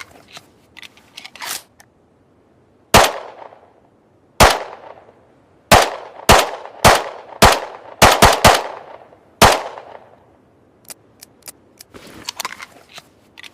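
Semi-automatic pistol firing about ten shots at an uneven pace, including a quick run of three near the middle, each crack trailing off in a short echo. Fainter small clicks come before the first shot and after the last.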